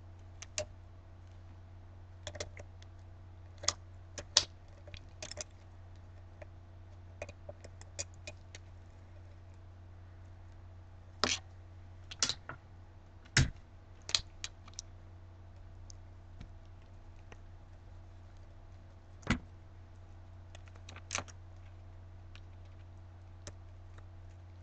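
Scattered light clicks and knocks of hands handling a flexible plastic stencil, tape and a wine glass, with a sharper knock about 13 seconds in and another about 19 seconds in, over a steady low hum.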